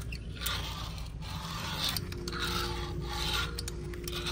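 Fingerboard wheels rolling and scraping across a glossy ceramic sink basin in short passes, with a few sharp clicks as the board's tail and trucks tap the porcelain.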